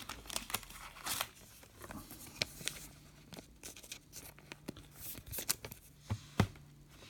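Trading cards being handled and shuffled through a pack: scattered, irregular rustles and sharp flicks of card stock.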